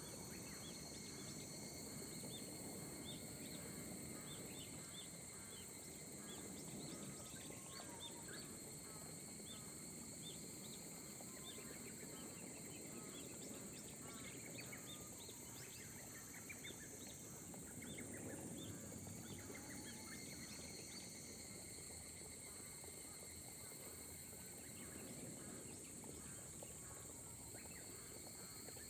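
Faint rice-paddy ambience in light rain: a steady high insect trill runs throughout, with many short, quickly repeated chirping calls over a soft low hiss of rain.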